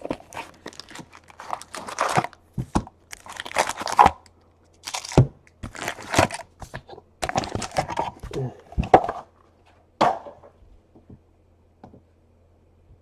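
Plastic wrapping on a trading card box being torn open and crinkled, in irregular rasping tears and crackles that stop about ten and a half seconds in.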